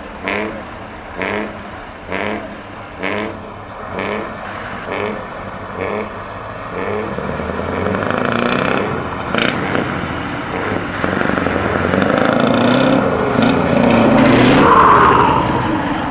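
Truck engine with an open, straight-pipe exhaust, blipped about once a second for the first few seconds, then held at higher revs for a longer, louder run that builds and then eases off near the end.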